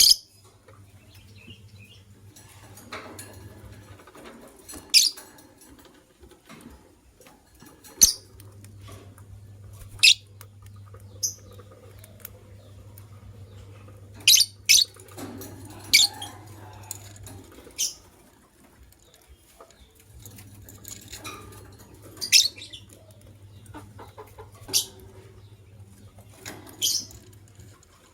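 White lovebirds giving short, sharp, high chirps every few seconds, sometimes two in quick succession.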